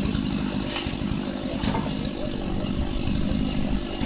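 An engine running steadily with an even low rumble, with two light knocks in the first two seconds.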